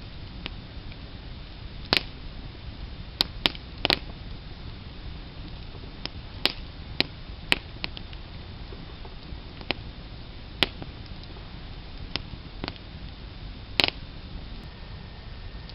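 Wood fire crackling, with irregular sharp pops and snaps every second or so over a steady low background noise.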